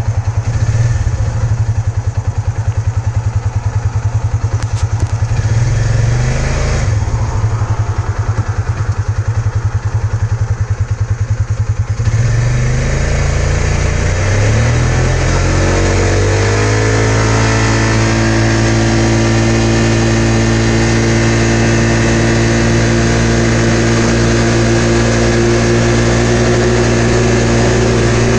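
Polaris RZR 570's single-cylinder engine, heard from the driver's seat, idles low with a brief rev about six seconds in. About twelve seconds in it revs up under throttle, and from about seventeen seconds it holds a steady high pitch while the machine gains speed, the CVT clutch (a Dalton kit) keeping the engine near 7000 rpm.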